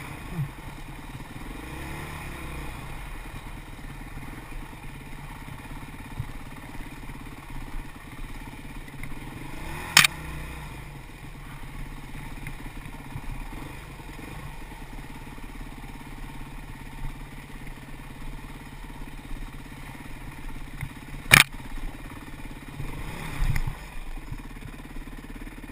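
Dirt bike engine running on the trail, its pitch rising and falling with the throttle. Two sharp knocks cut through, about ten seconds in and again about eleven seconds later.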